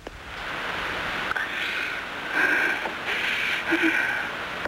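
Hiss of an old film soundtrack during a wordless stretch: a steady rushing noise that swells and fades every second or so.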